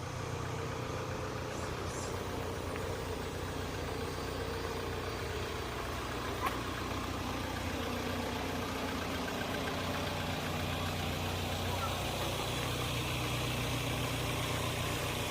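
A machine running with a steady low hum, with faint voices in the background.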